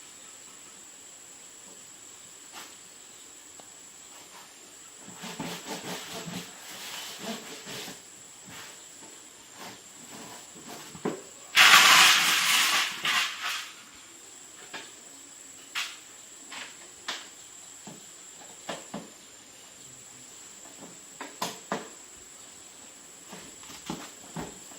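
Small clicks and taps of hands working at a repair bench, with a loud hiss of about two seconds near the middle and a faint steady high whine throughout.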